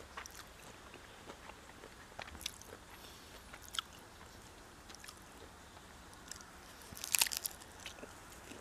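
Chewing and biting into a seaweed-wrapped triangle kimbap: faint mouth sounds and small scattered clicks, with a short burst of crunching about seven seconds in.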